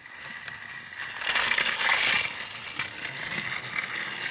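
Battery-powered TrackMaster toy train engine running on plastic track: a geared motor whining and rattling, starting up about a second in and running on steadily.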